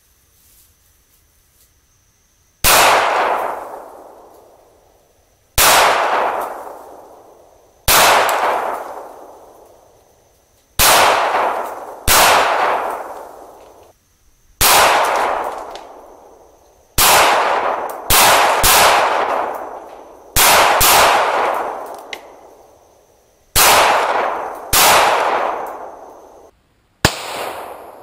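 Glock 21 SF .45 ACP pistol fired one shot at a time, about fourteen shots a second or more apart with a few quicker pairs, each ending in a long echoing decay.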